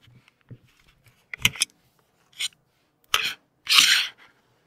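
Handling noise from a small handheld P-SB7 spirit box being picked up and set down: a few scattered clicks and short rustling scrapes, the loudest and longest just before the four-second mark.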